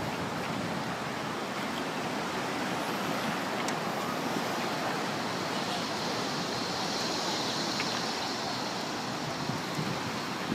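Steady rush of surf on a pebble shore, an even hiss with no clear breaks.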